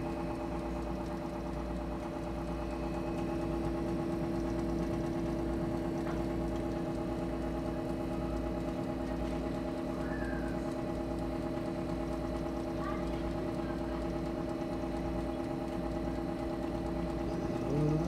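Oven running: a steady mechanical hum made of several constant tones over a low rumble.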